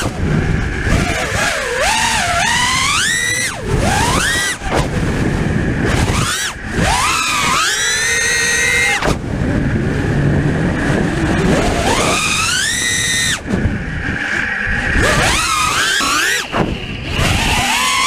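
The whine of T-Motor F60 brushless motors spinning 5-inch four-blade props on a 5S FPV quadcopter, heard from the onboard camera. The pitch climbs steeply on several throttle punches and drops away sharply as the throttle is chopped, over steady propeller wash noise.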